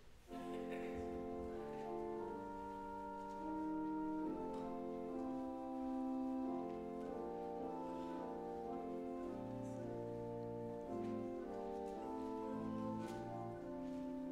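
Church organ playing the introduction to a psalm tune: held chords that change every second or two, with a bass line coming in about halfway through.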